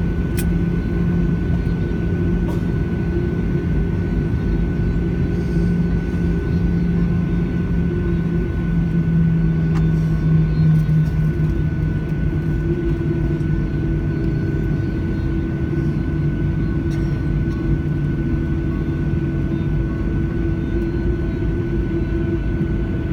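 Boeing 737 cabin noise while taxiing after landing: the jet engines' steady hum over a low rumble, with the low drone shifting pitch about halfway through.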